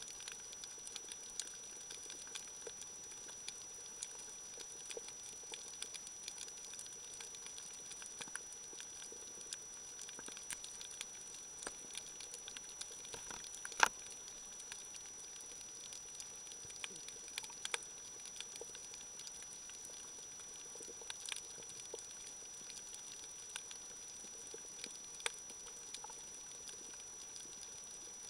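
Underwater crackle of a coral reef: snapping shrimp making a dense, faint patter of small clicks and pops, with one sharper snap about halfway through. A thin steady high whine sits over it.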